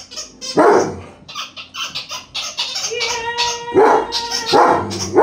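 German Shepherd barking: a loud single bark about half a second in, then several more close together near the end.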